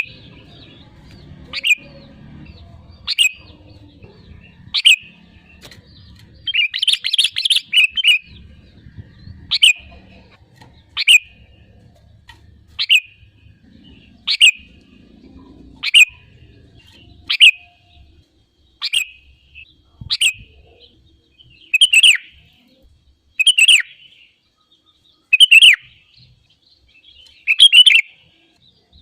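Sooty-headed bulbul calling: short bright call notes repeated about every one and a half seconds, with a longer run of notes about seven seconds in.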